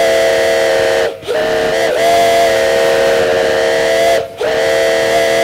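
Steam whistle on a grand-scale live steam locomotive blowing a chord of several notes at once in long blasts. It breaks off briefly about a second in and again about four seconds in.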